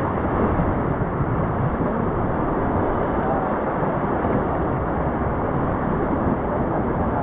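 Rushing whitewater of a river rapid around a raft, with wind buffeting the microphone: a loud, steady rush of noise.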